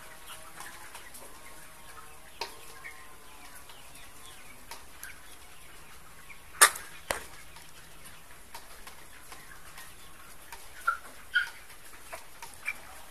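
Flock of young brown laying hens: faint clucks and short calls over a steady murmur, with a few sharp clicks, the loudest about halfway through, and a couple of short chirps near the end.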